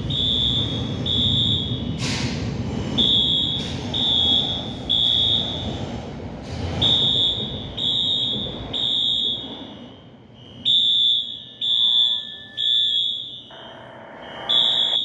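Building fire alarm sounding in the temporal-three evacuation pattern: three high beeps about a second apart, then a pause, the group repeating about every four seconds. A low rumble underneath dies away about two-thirds of the way through.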